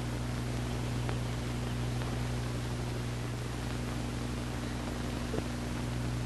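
Steady electrical hum with an even hiss under it, broken only by a couple of faint ticks.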